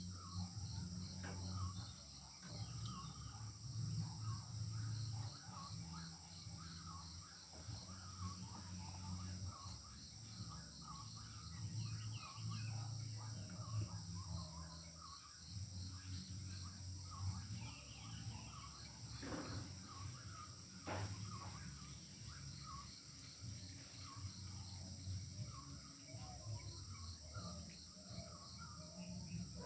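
Crickets trilling steadily and small birds chirping, over a low rumble that comes and goes as a stone roller is pushed back and forth on a flat grinding stone (miris gala).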